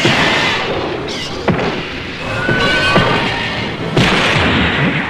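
Monster-battle film soundtrack dubbed with Toho sound effects: music under a series of heavy booming impacts, about four hits in five seconds, with short pitched cries in between.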